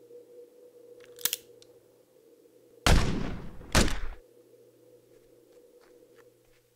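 A short click about a second in, then two loud gunshot sound effects under a second apart, each trailing off.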